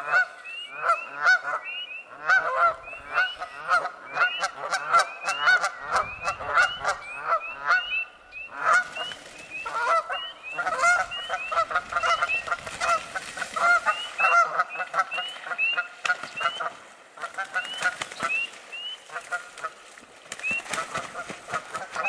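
Canada geese honking over and over, a steady run of loud calls about two or three a second.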